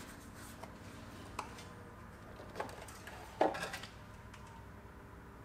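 A few light clicks and knocks, then a louder clatter a little past halfway: the plastic air filter housing of a car engine bay being unclipped and opened, and the filter handled.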